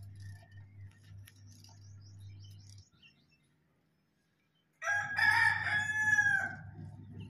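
A rooster crows once, a single long call starting about five seconds in and loud over a low steady hum.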